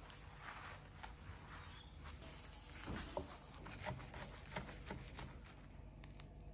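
Faint crackling and crunching of a knife cutting through crisp grilled tortilla quesadillas, a run of small clicks from about three seconds in.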